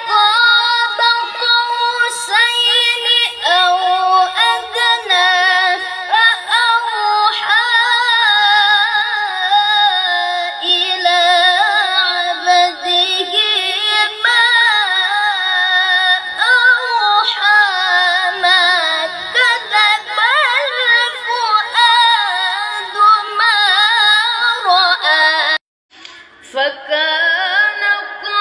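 A boy's high, unbroken voice reciting the Quran in melodic tilawah style, imitating a famous qari's manner (taklid): long held notes with wavering ornaments that rise and fall. The voice cuts off briefly near the end, then the recitation picks up again.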